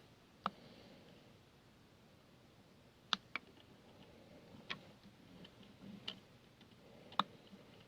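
A handful of light, sharp clicks and taps at irregular intervals, from small parts and tools being handled at a workbench while tiny LED leads are fiddled into contact with a tester.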